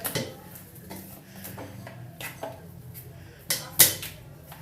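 A few short, sharp clicks and knocks of small hard objects being handled, the loudest two close together about three and a half seconds in, over a low steady hum.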